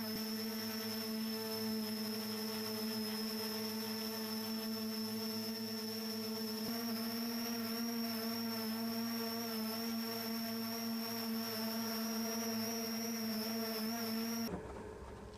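Volocopter VC200's eighteen electric rotors hovering: a steady hum and whine of many fixed tones held at one pitch, which cuts off suddenly near the end.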